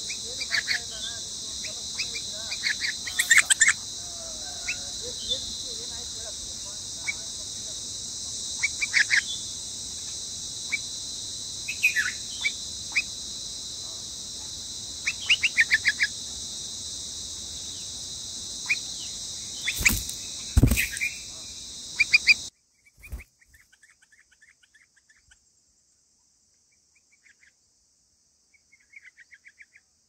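A parent bulbul at its emptied nest calling in short bursts of sharp chirps every few seconds, over a steady high insect drone. Two loud knocks come about two-thirds through, then the drone cuts off suddenly and only faint chirps remain.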